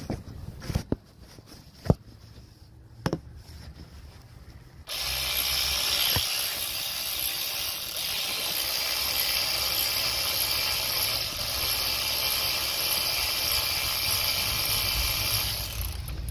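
A few light clicks and knocks of tools on metal, then about five seconds in a cordless power tool runs steadily for about ten seconds and stops, unscrewing one of the AC compressor's 12 mm mounting bolts.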